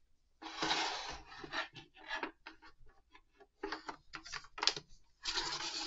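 Hard plastic parts of an action-figure display base being handled and fitted together on a wooden board: two scraping slides with a run of light clicks and knocks between them.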